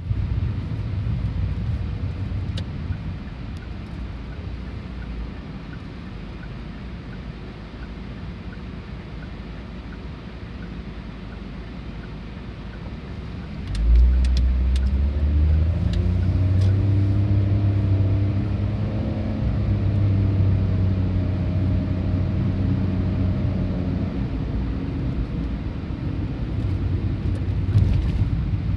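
Diesel railcar at a level crossing. A low rumble jumps in about halfway through, then the engine note rises in pitch as it pulls away and holds steady for several seconds before easing off.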